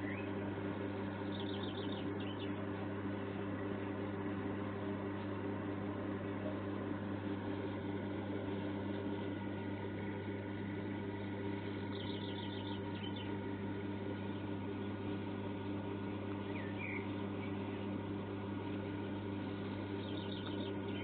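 A steady low hum with a background hiss. Over it a bird gives a short rapid trill three times, about ten seconds apart, and a brief chirp.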